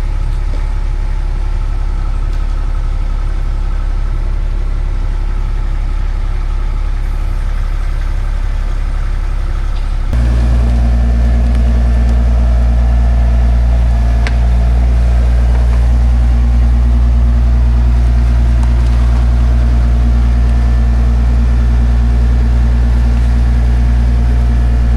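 An engine or motor running steadily with a low drone. It becomes louder and more tonal about ten seconds in.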